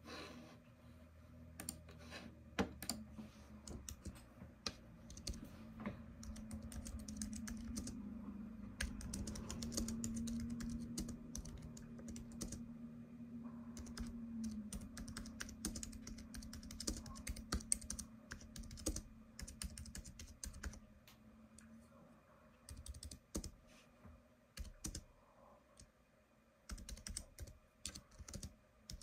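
Typing on a computer keyboard: irregular runs of key clicks, with a low steady hum underneath that fades out about two-thirds of the way through.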